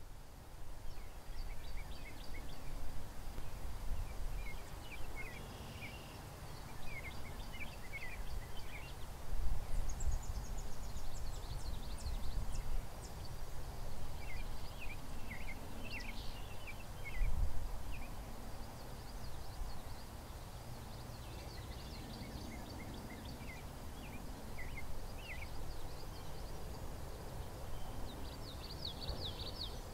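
Outdoor ambience of wind rumbling on the microphone, swelling in gusts about a third and halfway through, with small birds chirping now and then and a faint steady high tone behind them.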